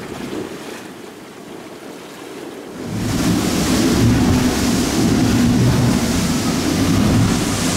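A fishing boat's outboard engines running at speed, with water rushing past the hull and wind on the microphone; it comes in suddenly about three seconds in, after quieter sea sounds.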